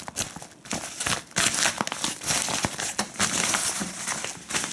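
Rustling and crinkling of a black synthetic-fabric shaver storage pouch as it is handled and squeezed open, with irregular sharp crackles, busiest around the middle.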